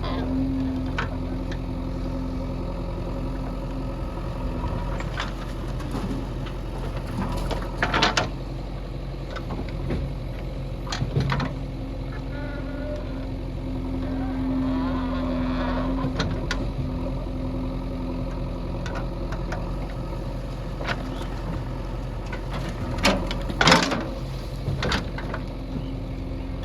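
Diesel engine of heavy earthmoving machinery running steadily, with a few sharp knocks about a third of the way in and again near the end.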